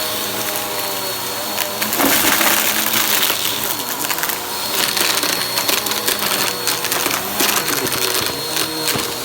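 Vacuum cleaner running, its motor pitch dipping and rising, with crunchy debris crackling and rattling as it is sucked up from about two seconds in.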